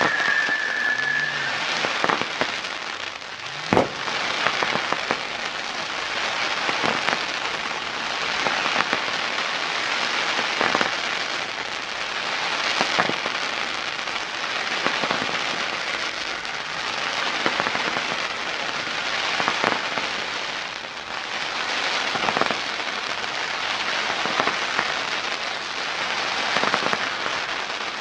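Firework display: dense, continuous crackling with many sharp pops and one especially loud bang about four seconds in. A firework whistle dips slightly in pitch and fades out within the first second and a half.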